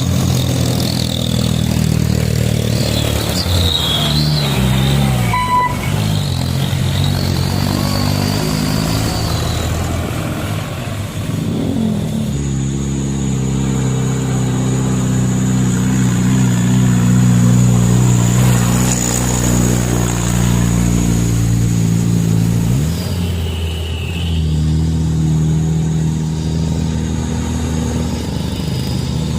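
Truck engine running steadily under load. Its pitch falls and climbs again a few times, as with gear changes.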